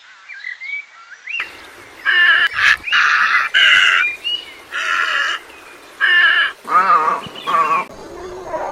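Faint bird chirps, then a bird calling loudly and repeatedly: about seven calls of roughly half a second each, the last two lower and wavering.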